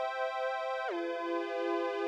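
Korg Poly 800 analog synthesizer holding a bright, sustained tone that bends down in pitch about a second in, then holds with a slow pulsing wobble.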